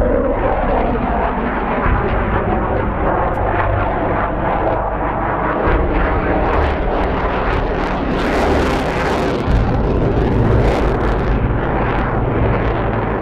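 MiG-29 fighter jets' twin turbofan engines running at high power during aerobatic manoeuvres, a steady loud jet rumble that turns harsher and crackling about two-thirds of the way through.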